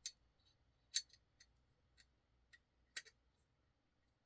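A few faint, sharp clicks of a folding knife's small metal parts being handled and fitted together during reassembly, the loudest about a second in and another near three seconds, with tiny ticks between.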